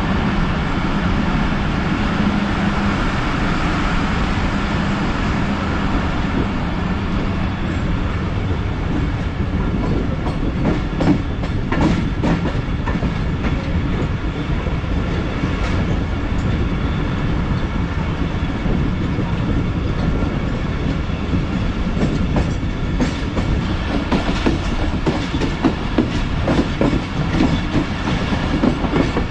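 Passenger train running as it picks up speed, heard from on board: a steady rumble of wheels on rails with a low hum in the first few seconds. Clicks from the wheels passing over rail joints come more often in the second half.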